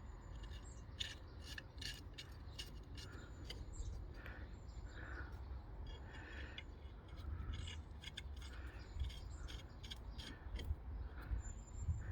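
Scattered light metallic clicks and short scrapes of hand work with steel bolts and tools on a brake drum, irregular, over a low background rumble.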